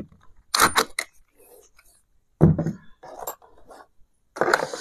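Several sharp metallic clinks and knocks at irregular intervals: brass door-lock hardware and a cordless drill being handled on a wooden door.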